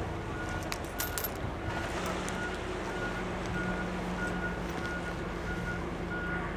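Machinery warning beeper sounding short beeps about twice a second over a background of engine noise, with a few metallic clinks about a second in and a steady low engine hum joining about two seconds in, as the crane lowers the concrete reef ring into the water.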